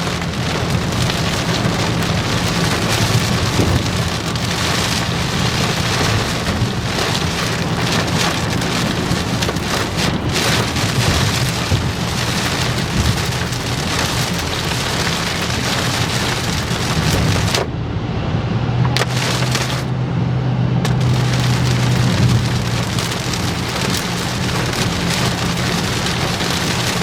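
Heavy rain pounding on a moving vehicle, heard from inside the cab, over the steady low hum of the vehicle. About two-thirds of the way through, the rain noise cuts out twice for a second or so.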